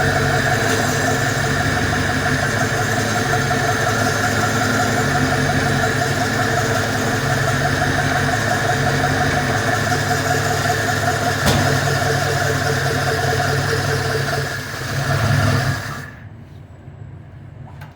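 VAZ-2101 four-cylinder engine idling steadily, then dipping and briefly rising about fifteen seconds in before it is switched off and cuts out.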